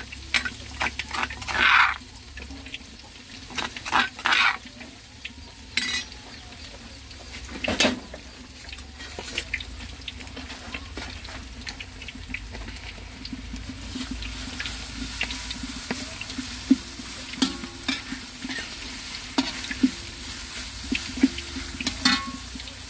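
Food frying in a hot pan: a steady sizzle that grows stronger about halfway through, with repeated scrapes and knocks of a utensil stirring against the pan, loudest in the first half.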